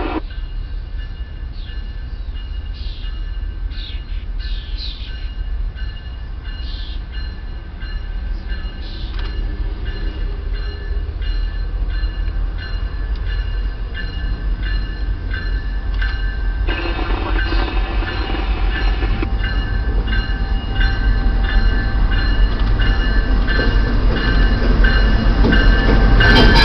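Pan Am Railways freight train approaching: a low diesel rumble that grows steadily louder, stepping up about two-thirds of the way through, with steady high tones over it.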